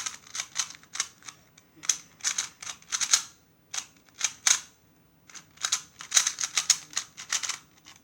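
A 2x2 speedcube being turned rapidly during a timed solve: quick runs of plastic clicks with short pauses between them, and one sharp click right at the end.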